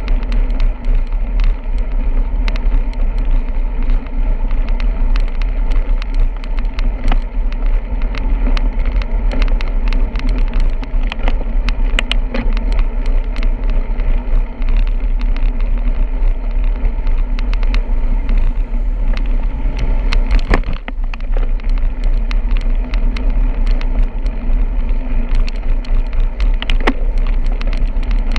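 Steady wind rush and road noise on a bicycle-carried camera's microphone while riding, with frequent small clicks and rattles.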